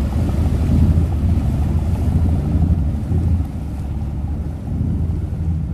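Antique wooden runabout's engine running low as the boat motors away, getting quieter a little over halfway through, with wind buffeting the microphone.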